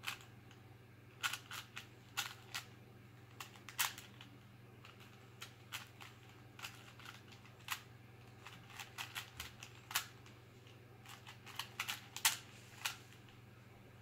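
3x3 Rubik's Cube being turned by hand: irregular sharp plastic clicks as the layers are twisted, some in quick runs of several turns and some single, with short pauses between.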